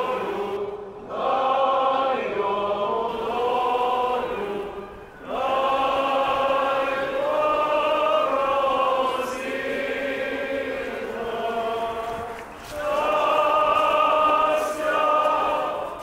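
A group of voices singing a liturgical chant of the Byzantine rite in long held phrases, with brief breaks for breath about a second in, about five seconds in and shortly before the end.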